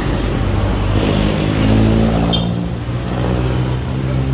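Honda Ape 100's single-cylinder four-stroke engine idling, revved once about a second in and falling back to idle about two seconds in.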